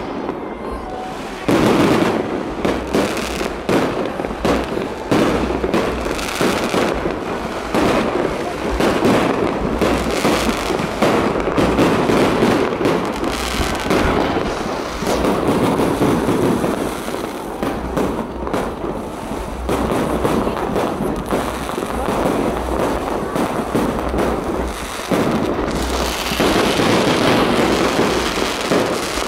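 Fireworks display: aerial shells bursting overhead in a dense, continuous run of bangs, one on top of another.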